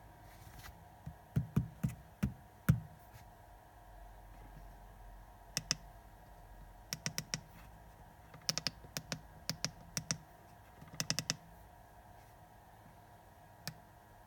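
Keypad buttons on a handheld IPC/CCTV tester being pressed, clicking in quick clusters of two to five presses with short pauses between. A few louder knocks come in the first few seconds.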